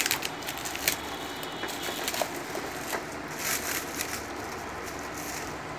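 Plastic wrapping and styrofoam packing being handled, crinkling and rustling, with a few sharp clicks in the first second.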